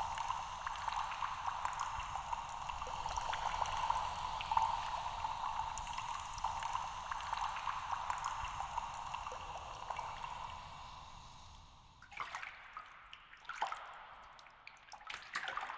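Trickling liquid sound effect, a steady run of water flecked with tiny drips, that dies away about twelve seconds in and is followed by a few scattered drips.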